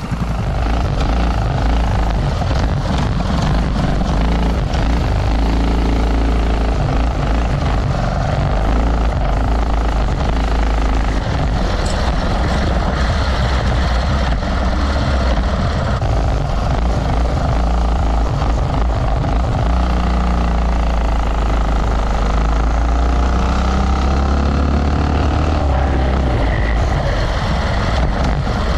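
Mini bike's Predator 212 single-cylinder four-stroke engine running hard on a ride, its pitch rising and falling as it speeds up and eases off.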